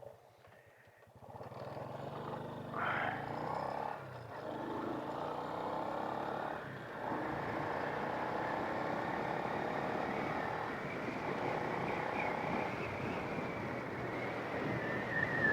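Small single-cylinder four-stroke engine of a Honda Wave 100 cc step-through motorcycle running steadily under way, starting about a second in.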